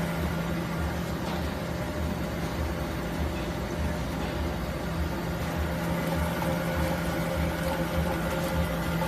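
In-mold labeling machine running steadily: a constant machine hum with a low throb pulsing about twice a second.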